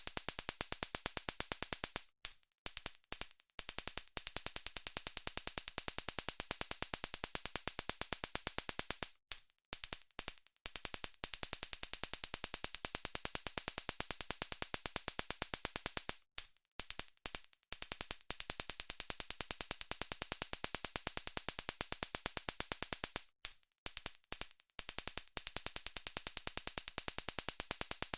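Stun gun arcing: a rapid, steady train of sharp electric snaps. About every seven seconds it breaks into a second or two of short stuttering bursts, then resumes.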